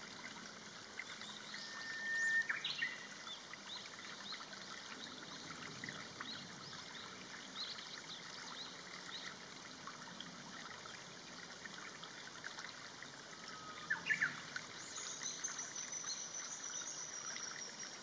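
Shallow stream trickling and babbling over stones and twigs, at a low level. A few bird calls sound over it: short whistles ending in a quick upward flick about two and a half seconds in and again near fourteen seconds, and a thin high whistle falling slightly in pitch about fifteen seconds in.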